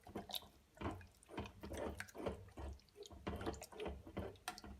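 Water poured from a glass onto raw boneless chicken in a pot, splashing and dripping in short, irregular bursts.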